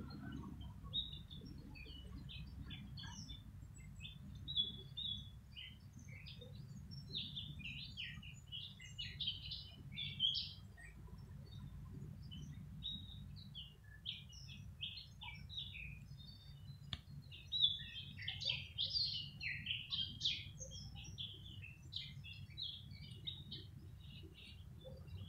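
Small songbirds chirping and twittering in quick, irregular high notes, busiest about a third of the way in and again just past the middle, over a low steady background hum.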